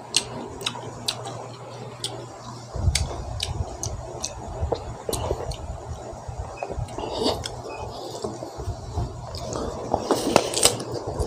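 Close-up wet chewing and mouth clicks of a person eating green mango dipped in shrimp paste, with louder bite sounds clustered about ten seconds in.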